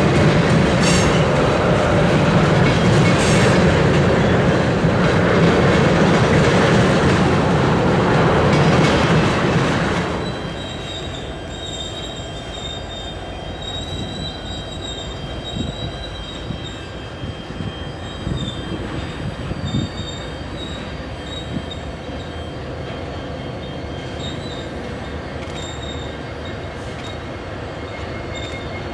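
Norfolk Southern freight train rolling past with a loud, steady rumble of locomotives and cars. About ten seconds in it drops suddenly to a quieter scene: a second freight approaching from a distance, with thin, steady high wheel-squeal tones.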